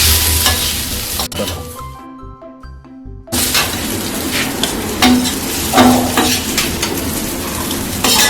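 Ground masoor dal mixture frying and sizzling in an onion-and-spice masala in a pan while a spoon stirs and scrapes it. About a second in the sizzle drops away, leaving faint steady tones, and it comes back abruptly a little over three seconds in.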